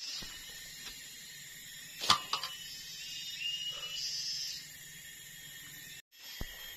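Forest insects keeping up a steady high-pitched chorus, with one sharp knock about two seconds in from the stick and saw being handled.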